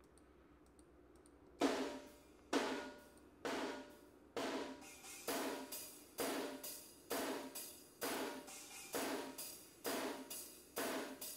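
Soloed drum room-microphone track from a metal multitrack session. After a quiet start with a few faint ticks, cymbal crashes come in about a second and a half in and repeat evenly, roughly once a second, each ringing out before the next.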